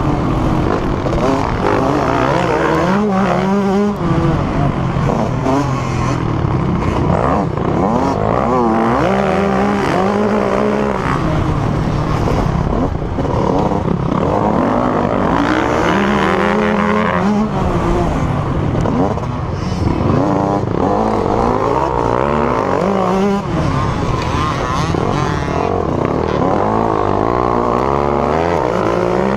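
Motocross dirt bike engines racing close up, revving up and down over and over with throttle and gear changes, the camera bike's own engine loudest with other bikes just ahead.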